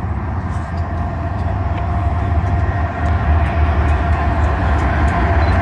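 Diesel locomotives of a BNSF freight train approaching: a deep engine rumble with a thin steady whine above it, growing gradually louder.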